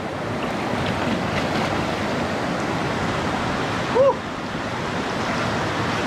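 Steady rushing of a small river cascade and rapids pouring into a pool. A short vocal exclamation is heard about four seconds in.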